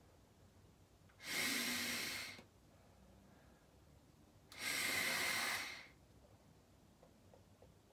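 Two long, hissing inhalations drawn through the nose from a vape, about three seconds apart, each lasting a little over a second.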